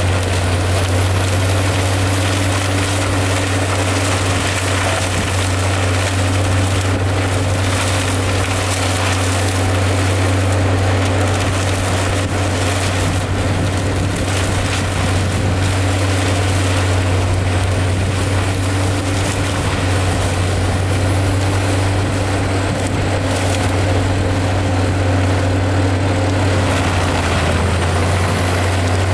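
Prinoth AHWI Raptor 800 tracked forestry mulcher, 640 hp, running steadily under load as its rotor grinds logs and brush, a constant heavy drone with scattered cracks of wood being chewed up.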